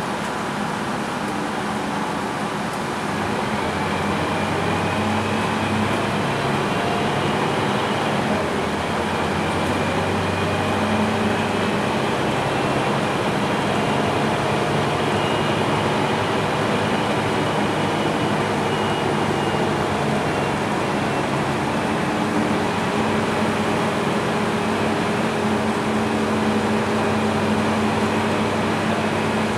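Scania K230UB double-decker bus's diesel engine and drivetrain running while the bus drives, heard from inside the lower deck as a steady low drone whose pitch shifts with the engine speed. A faint whine rises and falls in pitch, and the noise grows a little louder a few seconds in.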